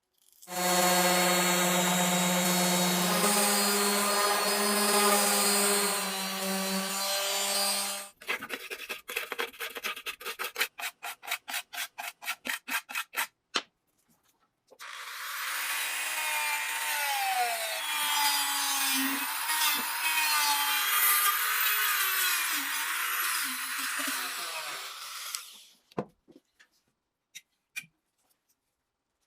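Wood being worked with tools: first a steady pitched tool sound for several seconds, then a run of quick, even strokes like sawing or rasping, then a longer stretch of rubbing with wavering tones.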